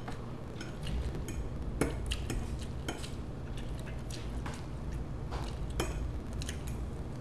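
Metal fork clinking and scraping on a plate while twirling spaghetti: a scatter of short sharp clicks at irregular intervals, over a low steady hum.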